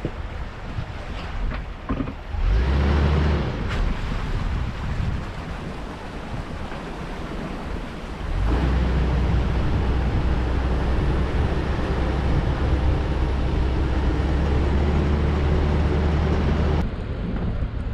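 A 4x4 driving off-road: steady engine and tyre rumble with a broad noise over it, stepping up louder about eight seconds in and changing abruptly near the end.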